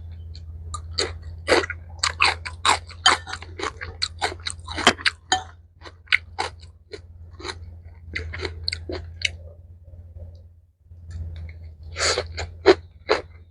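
Close-miked chewing of a mouthful of mixed rice with pickled mustard greens and vegetables: rapid wet, crisp crunches, several a second, with a brief pause about ten seconds in before the chewing resumes. A steady low hum lies underneath.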